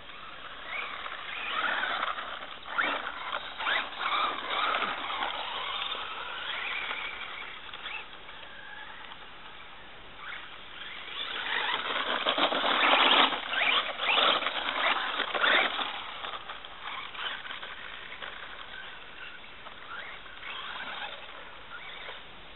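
Carson E-Crasher brushless RC truck driving on a dirt trail: its electric motor whines up and down in pitch, mixed with noise from the tyres on dirt and leaves. There are two louder spells of driving, one starting about a second in and one about eleven seconds in.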